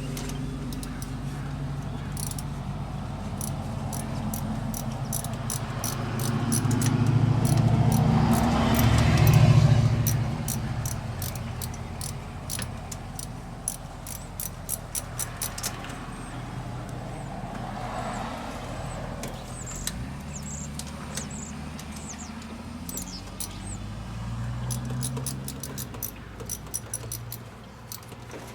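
Metal hand tools clicking and clinking while fittings are worked on under a car's hood, over a steady low hum. A vehicle passes by, rising to its loudest about nine seconds in and then fading.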